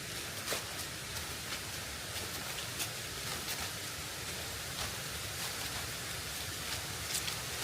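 Steady outdoor rushing noise, with scattered light ticks every second or so.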